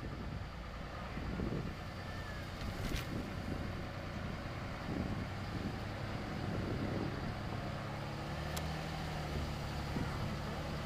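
Vehicle engine running as it drives slowly along a dirt track, a steady low hum that rises slightly past the middle. There are two sharp clicks, about three seconds in and near the end.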